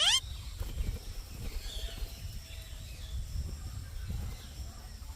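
A parrot's squawk rising sharply in pitch right at the start, then a low rumble with a few faint chirps.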